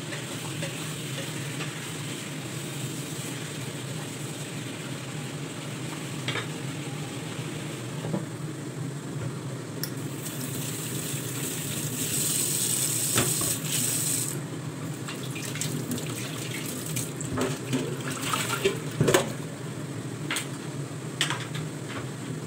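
Kitchen tap running into a sink for a few seconds about halfway through, with a loud hiss. It is followed by scattered clinks and knocks of dishes, pots and utensils, over a steady low hum.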